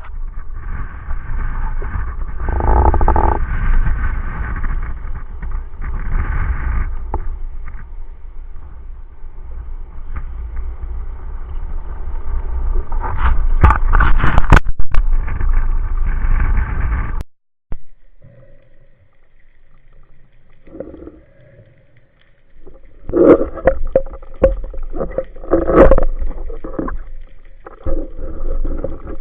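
Sounds of a small boat on the water: a loud steady low rumble that cuts off suddenly about 17 seconds in, then scattered knocks and scrapes.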